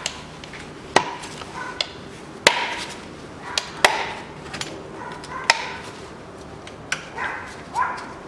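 Spring latches on a car's plastic air filter housing being snapped shut, a series of sharp clicks at irregular intervals.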